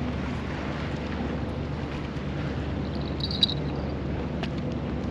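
Steady wind noise buffeting the microphone, a low, even roar, with one brief high chirp about three and a half seconds in.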